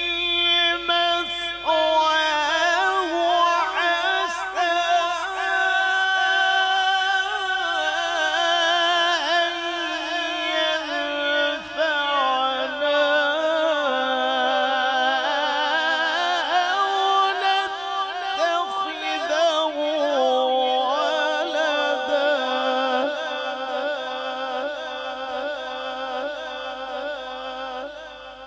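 A man's voice reciting the Quran in the melodic tajweed style, unaccompanied, in long drawn-out phrases with ornamented, wavering held notes. The voice trails off near the end.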